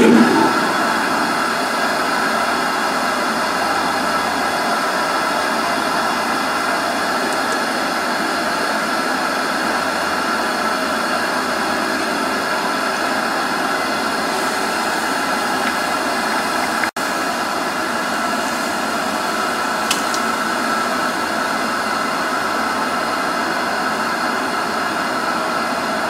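A steady machine-like whir and hiss that does not change, with a short splash right at the start as a hot steel casting mold is plunged into a bucket of water.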